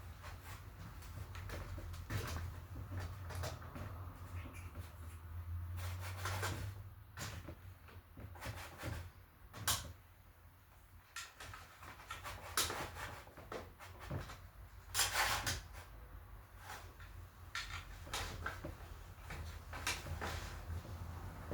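Irregular clicks, knocks and light clatter of hands and tools working on a RockShox bicycle suspension fork during a fork service, over a low steady hum. The sharpest knocks come about ten and fifteen seconds in.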